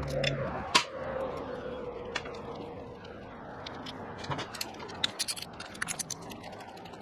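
Small hand ratchet clicking in short quick runs as bolts are backed out of a dirt bike's upper engine cover, with light metal clicks and scrapes of the tool and bolts.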